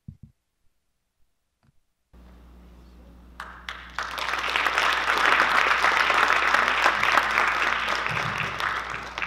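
An audience applauding: a few scattered claps about three and a half seconds in swell quickly into full, steady applause that begins to fade at the very end. A low steady hum sets in about two seconds in, beneath it.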